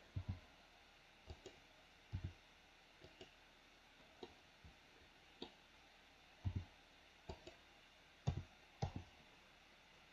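Computer mouse clicks and keyboard key presses: a dozen or so short, sharp clicks at irregular intervals, some in quick pairs.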